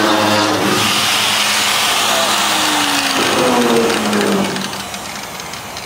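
Angle grinder with a masonry cutoff disc cutting through the steel floor of a truck bed, its motor whining steadily. Around the middle its pitch falls as it winds down, and it goes much quieter after about four and a half seconds.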